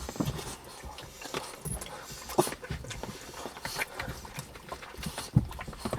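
Dogs close by being fed scraps of steak, heard as scattered small clicks and low knocks rather than barking.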